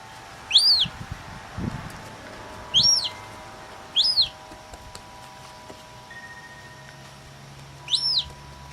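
Young gull chick peeping: four short, high calls, each rising then falling in pitch, spaced unevenly a second to a few seconds apart, over a faint steady hum.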